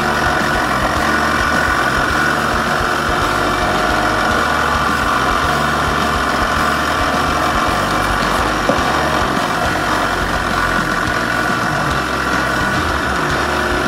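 Small wood lathe running steadily at constant speed, spinning an acrylic duck call insert while it is polished with a paper towel and scratch remover.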